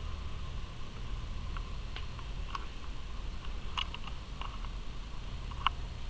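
Handling noise from a handheld camera: a steady low hum with scattered small clicks and ticks, the sharpest about four and five and a half seconds in.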